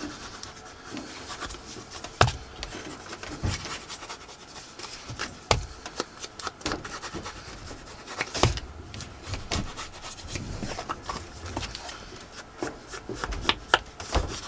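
Paper being handled and rubbed, a rustling, scraping sound broken by a few sharp taps, the loudest about a third and halfway in.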